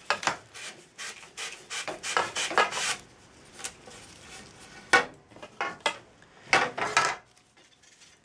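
Sandpaper rubbing over the surface of a carbon-fibre telescopic pole section in irregular strokes, a busy run at first, then a few separate strokes with pauses between. The sanding roughens the surface so a clamp will glue on.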